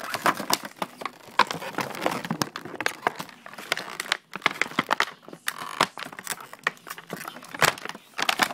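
Plastic packaging being handled, crinkling with many sharp, irregular crackles.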